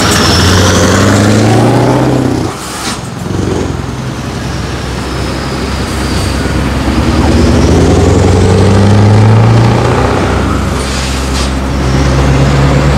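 Scania R500's V8 diesel engine being revved with the throttle: a short rev that drops away about two and a half seconds in, then a long, slow climb in pitch to a peak before falling back toward idle.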